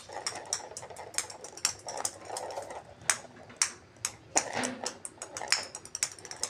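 Small plastic balls bouncing and clattering on a ceramic tile floor: an irregular run of sharp clicks, several a second.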